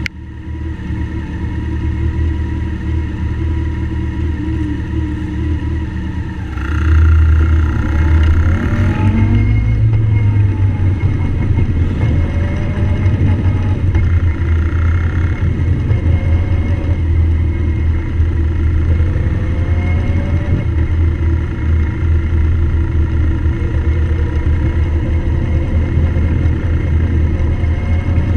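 Motorcycle engine running at low road speed, heard from on the bike. It gets louder about seven seconds in as the bike accelerates, and its pitch then rises and falls.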